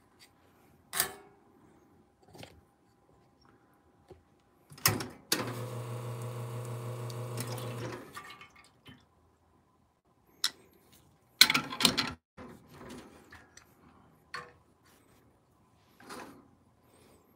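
Lelit Bianca espresso machine's pump running for about three seconds in a steady hum as the group head is flushed, water splashing into the drip tray. Sharp clicks come before it, and loud metal clunks follow about two seconds later as the portafilter is locked into the group head and a scale is set on the tray.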